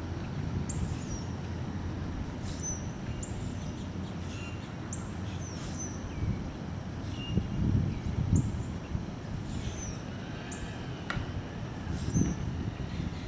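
Birds calling: short, high-pitched chip and whistle notes, many sliding downward, repeated every second or so. Under them runs a steady low rumble that swells briefly about eight seconds in and again near the end.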